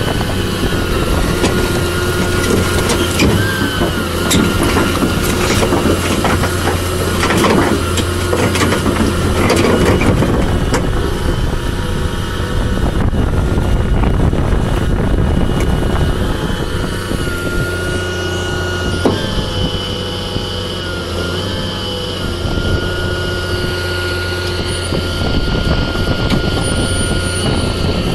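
Volvo crawler excavator's diesel engine running steadily under load as the machine drives up ramps onto a lowboy trailer. Clanks and knocks from the steel tracks come mostly in the first ten seconds, and a thin high whine sounds on and off later.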